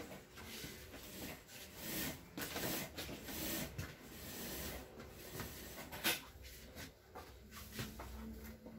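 Irregular rustling and scraping handling noises, with a sharp click about six seconds in.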